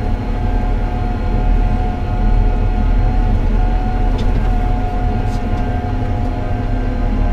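Tractor engine and drivetrain running steadily on the road under the load of a trailer, heard from inside the cab: a constant low drone with a steady higher whine over it.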